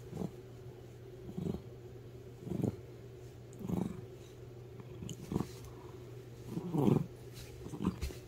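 A cat growls in short, low grumbles, about seven of them a second or so apart, while play-biting a hand; the loudest comes near the end. A steady low hum runs underneath.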